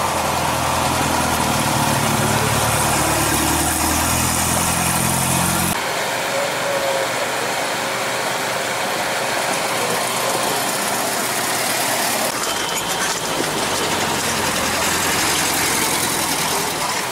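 Air-cooled Volkswagen Beetle flat-four engine running as the car rolls in at low speed. About six seconds in it cuts off abruptly to thinner, steady background noise without the low engine sound.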